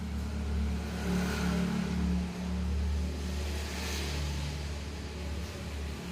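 Hot and cold laminating machine running, a steady low motor hum from its drive.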